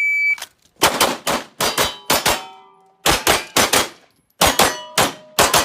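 A shot-timer beep sounds for about a third of a second. It is followed by three quick strings of pistol shots drawn from the holster, about fifteen shots in all. Steel targets ring after the hits.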